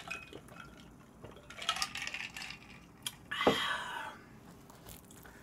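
A person gulping a dark soft drink from a glass, with a few wet swallowing clicks, then about three and a half seconds in a loud breathy "ah" of an exhale that falls in pitch.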